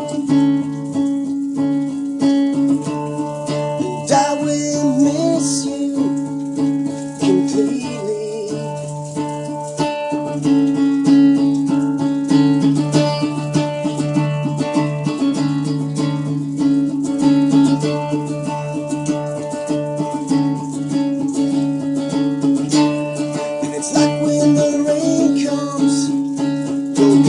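Live acoustic music: a strummed acoustic string instrument playing held chords.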